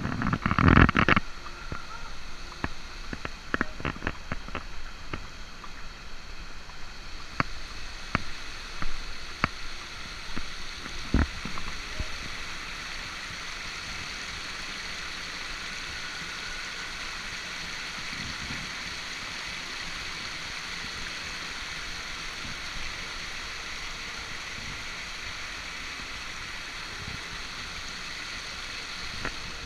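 Water rushing steadily over a low weir. In the first second there are loud handling bumps, and scattered sharp clicks and knocks follow for about the first ten seconds before only the even rush remains.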